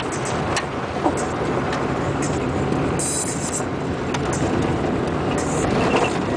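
Car driving on a bumpy dirt road, heard from inside the cabin: steady engine and tyre rumble with scattered rattles and clicks from the rough ride.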